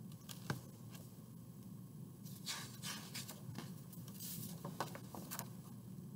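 Paper pages of a picture book being leafed through by hand: a run of soft rustles and light taps, louder in the middle seconds.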